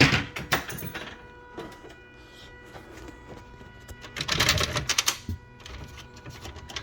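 Super Bar X fruit machine being played: sharp mechanical clicks in the first second, then a quick rattling run of clicks about four seconds in, over faint steady electronic tones from the machine.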